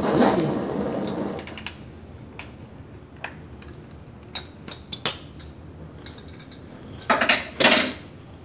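Handheld butane blow torch burning with a steady rushing hiss that cuts out about a second and a half in. A few light clicks and knocks follow, and near the end come two loud short bursts of noise.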